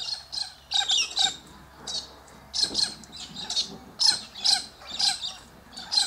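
Cockatoos squawking: a string of short, harsh, high-pitched calls, two or three a second.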